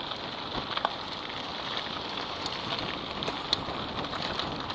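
Riding noise from a mountain bike rolling down a dirt and gravel track: a steady crunching of the tyres on loose ground, with scattered small clicks and rattles from the bike over the bumps.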